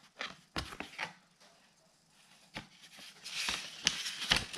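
Paper leaflets and a card rustling and crinkling as they are handled, with a few light taps and clicks; the loudest, longest rustle comes in the last second or so.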